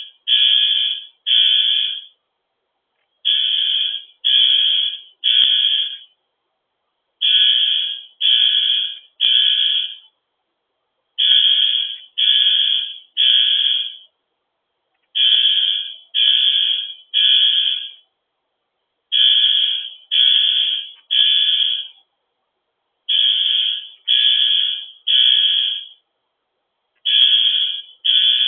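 Building fire alarm horn sounding a harsh, high buzzing tone in the three-blast evacuation pattern (temporal-3): three blasts, a pause, then repeating about every four seconds. The alarm was set off by a manually pulled fire alarm.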